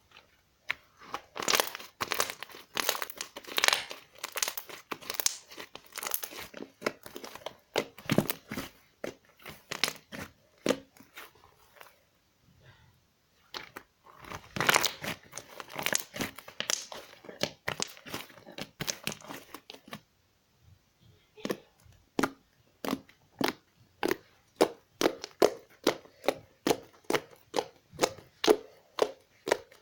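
Slime being squeezed and poked by hand, making a dense run of clicks and pops with two short pauses. Near the end the pops come in a steady rhythm of about two a second.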